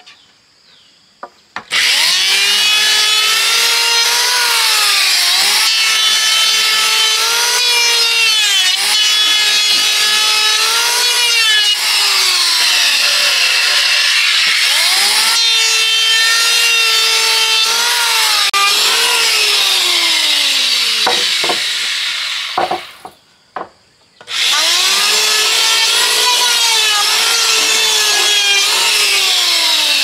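A handheld electric power tool cutting wood. Its motor whine drops in pitch each time it bites into the work and rises again as it eases off. It stops for about a second near the three-quarter mark, then starts again.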